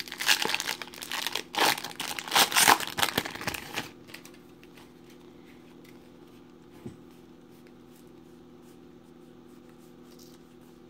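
Foil wrapper of a baseball card pack being torn open and crinkled, loud and crackly for about the first four seconds. After that it goes quiet apart from one light click about seven seconds in.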